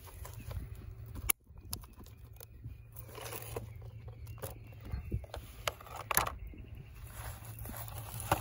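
Hard plastic clicks, scrapes and rattles of a pool-robot filter basket being handled: clips unlatched and a mesh panel filter pulled out, with several sharp clicks a little past the middle. A steady low hum runs underneath.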